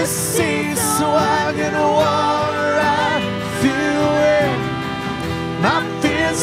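Live worship band playing a slow song, with voices holding long, sliding sung notes over strummed acoustic guitar and keyboard.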